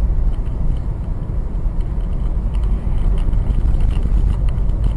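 Steady low rumble of a car driving along a road, engine and tyre noise heard from inside the car.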